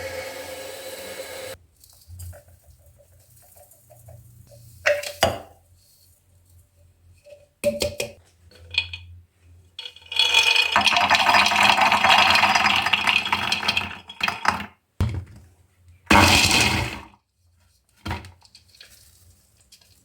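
Kitchen dishes and utensils clinking and knocking during food preparation. About ten seconds in there is a loud, rough, continuous noise lasting about four seconds, and a shorter loud one comes near the end. Background music stops in the first two seconds.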